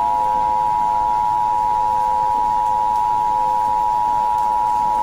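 Emergency Alert System two-tone attention signal: two pure tones just under 1 kHz (853 and 960 Hz) sounding together, steady and unbroken. It announces a new warning message.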